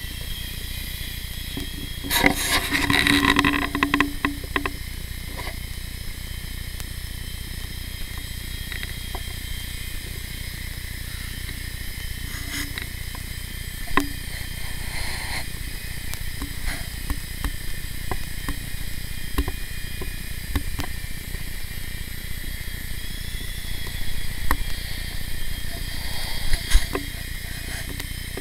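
Blade mCX Tandem Rescue micro RC helicopter in flight: its two small electric rotor motors making a steady high whine and whir. About two seconds in there is a louder rattling burst lasting a couple of seconds, with a few sharp clicks later.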